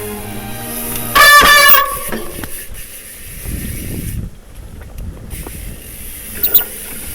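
A mountain bike's disc brake squealing loudly and shrilly for about half a second about a second in. Low rumble from the tyres on the trail follows, with two more brief squeaks near the end.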